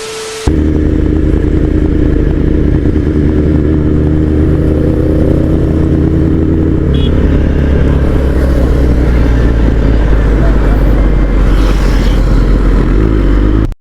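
Kawasaki Ninja ZX-10R inline-four with an Akrapovic full-system exhaust, running under way at a fairly steady engine speed. The note sets in about half a second in and holds nearly the same pitch, rising slightly midway.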